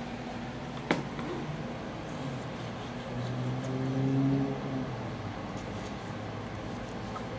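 Steady low hum of refrigeration equipment, with a single sharp knock about a second in as the slicing knife is set down on the plastic cutting board. A louder low drone swells and fades in the middle.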